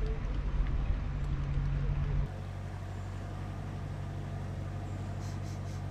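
Narrowboat diesel engine running steadily at cruising speed, a low drone. About two seconds in the sound changes abruptly to a quieter, steadier hum.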